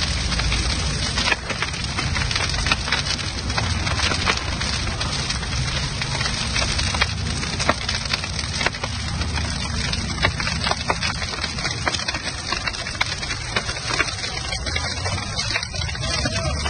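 Large pile of rubber tyres burning, a steady rushing fire noise with many sharp cracks and pops through it.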